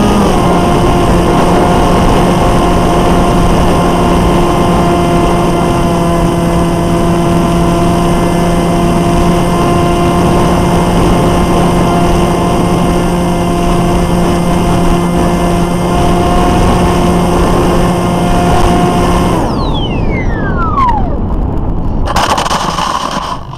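Brushless electric motor and propeller of a Dragon Wing 300 RC wing, heard from its onboard camera as a steady drone with wind rushing over the microphone. About 19 seconds in the motor cuts and its whine falls in pitch as it spins down. A short scraping rush near the end comes as the plane comes down on gravel.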